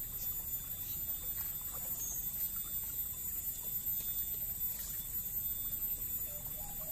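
Creekside outdoor ambience: a steady low rushing noise with a faint steady high ringing and a few light ticks. There is a short, faint pitched call near the end.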